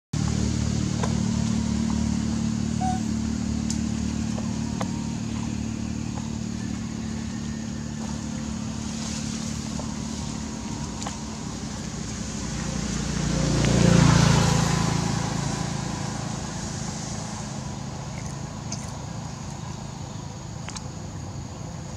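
A motor vehicle engine running steadily, then swelling as a vehicle passes close about fourteen seconds in, and fading away after.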